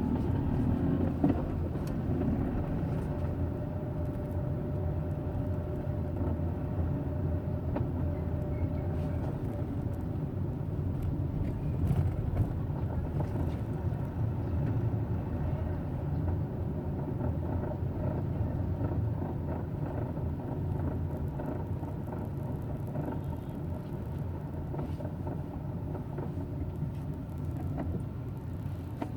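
Hyundai Eon running at low rpm, a steady low rumble with a faint hum. This is the low-rpm running in which the owner reports a grinding noise.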